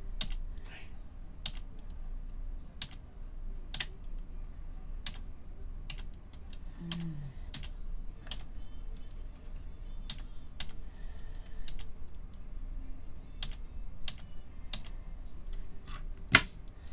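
Sharp, single computer clicks, about one or two a second, from a mouse and keys repeatedly re-running an online list randomizer. One click near the end is much louder.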